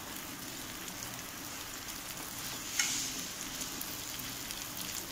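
Cornflour-battered beef pieces sizzling steadily as they shallow-fry in hot oil in a nonstick pan, stirred with a wooden spatula. One sharp click about three seconds in.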